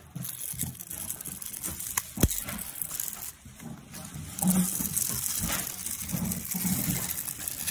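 Plastic housing of a Mercedes-Benz centre-console touchpad being pried apart with a flathead screwdriver, its heated glue letting go: sharp plastic clicks, the loudest about two seconds in, then a stretch of scraping and creaking in the second half.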